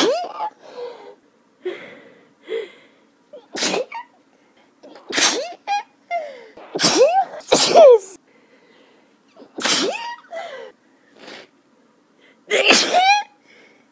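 A fit of allergic sneezing: about seven sneezes in quick succession, each with a short voiced cry, and smaller sniffs and gasps between them.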